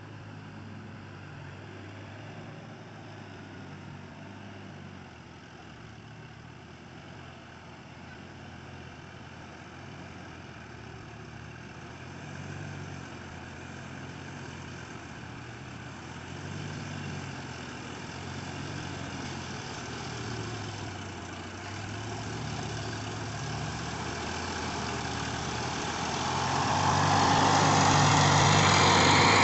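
Sonalika DI 740 III tractor's diesel engine running steadily as it works through a flooded paddy field toward the listener, getting gradually louder, then much louder near the end as it comes close.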